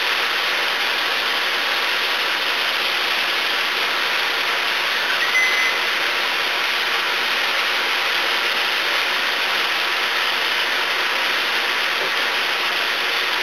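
Steady, even sizzling of chopped vegetables frying in a skillet. There is a short high squeak about five seconds in.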